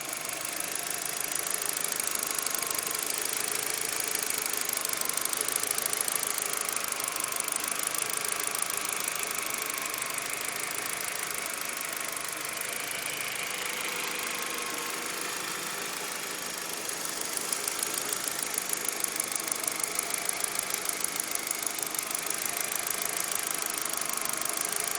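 Audi A4 engine idling with a fast, even ticking in time with the engine, which the owner ties to a newly installed timing belt.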